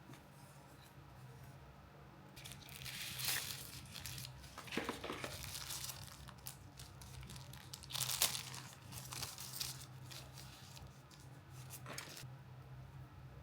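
Packaging being torn open and crinkled by hand: scratchy tearing and rustling in several bursts, loudest about three seconds and eight seconds in.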